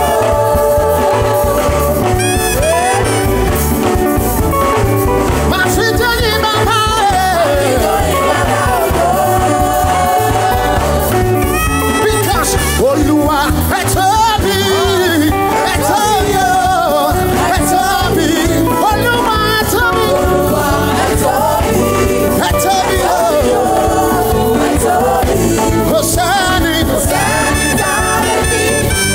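Upbeat gospel praise music: singing over a full band with a steady beat.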